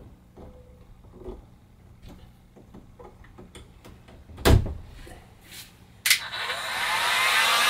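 Handling clicks and a loud thump as the plug goes into the outlet, then a click about six seconds in and a 1550-watt heat gun starts. Its fan whines up in pitch as it spins up and then blows steadily, showing that the outlet has power.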